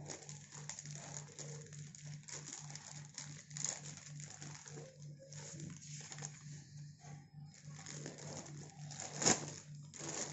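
Plastic courier mailer bag crinkling and rustling as hands pull it open and handle the paper slip inside, with one sharper crackle about nine seconds in.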